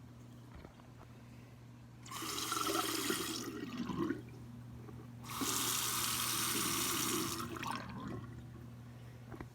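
Water rushing in two bursts that start and stop abruptly: one of about a second and a half, then, after a short pause, one of about two seconds. A steady low hum runs underneath.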